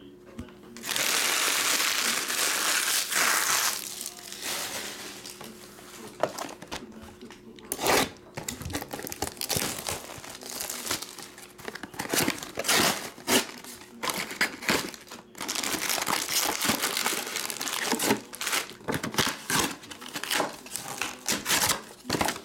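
A trading card box and its wrapping being torn open and its packs handled: two stretches of loud crinkling and tearing, about a second in and again around the middle, with many small taps and clicks between them.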